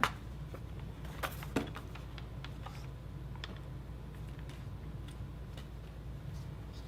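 Light clicks and taps of an unboxed collector's boxset and its contents being handled, with a sharper click right at the start and two more about a second and a half in, over a steady low hum.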